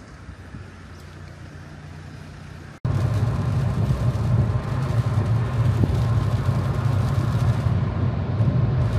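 Steady car noise with no speech. For about the first three seconds there is a quieter hum. Then it cuts abruptly to louder driving noise heard inside the cabin: a low drone from the engine and road with a hiss over it.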